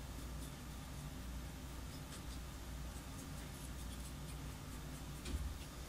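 Faint scratching and ticking of a small paintbrush dabbing weathering powder onto a plastic model locomotive's boiler, over a low steady hum.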